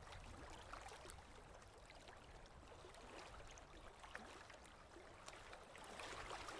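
Faint lapping and gurgling of water with many small ticks, a little louder near the end.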